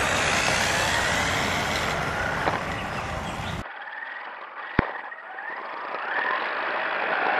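Brushless electric motor (2847, 3200 kV) of a 1/14-scale RC buggy whining as it speeds up and slows down, with tyre noise on asphalt. About three and a half seconds in, the sound switches abruptly to the car's onboard camera audio, where the motor whine rises and falls and a single sharp knock is heard near five seconds in.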